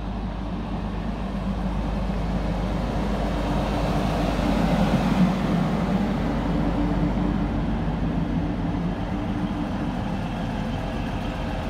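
Diesel engines of a TransPennine Express multiple-unit train running beside the platform: a steady low hum that swells a little about halfway through, then eases.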